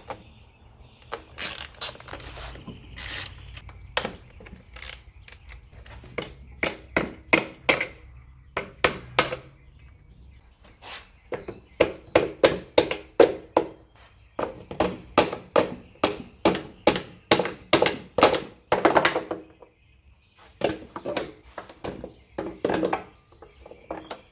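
Repeated hand-tool knocks and thunks on the truck's engine as the fuel rails are worked loose, with runs of ringing strikes about two a second in the middle of the stretch.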